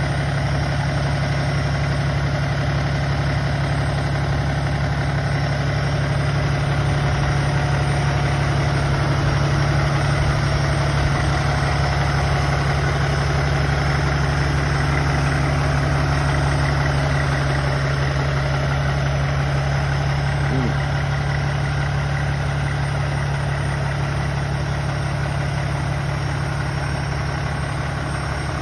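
Peterbilt 567 dump truck's diesel engine idling steadily.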